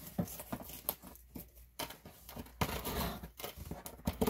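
Packing tape being picked at and torn on a cardboard box: irregular scratching and tearing with a few sharp clicks.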